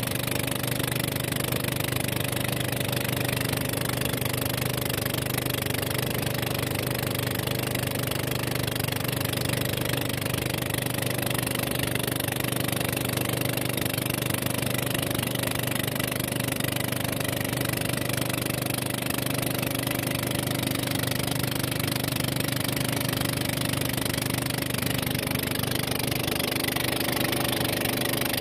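A small wooden motorboat's engine running steadily at one speed while under way, with the hiss of water rushing past the hull.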